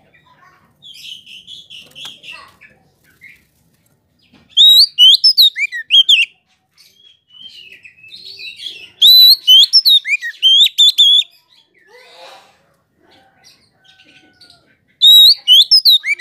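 Oriental magpie-robin (kacer) singing: three loud phrases of rapid, sweeping whistled notes a few seconds apart, with softer chattering notes in between.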